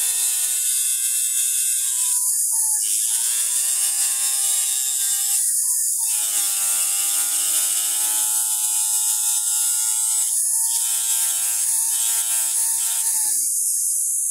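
Jeweler's high-speed rotary handpiece with a diamond cutting bit grinding through a metal ring worn on a finger. It gives a steady high-pitched whine over a hissing grind, and the motor's pitch dips and recovers several times as the bit bites into the metal.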